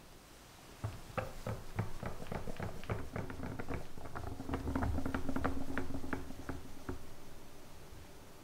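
Wire whisk stirring a thick cream-cheese and whipped-cream mousse mixture in a glass bowl: quick, irregular wet clicks and squelches. It starts about a second in, is loudest a little past the middle and fades out near the end.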